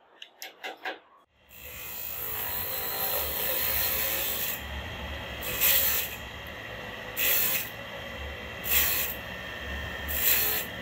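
A few quick light hammer taps as wooden spindles are knocked into a clock rim. Then a small electric bench saw starts running with a steady hum, and four short louder cutting surges about every second and a half as small pieces of wood are pushed through it.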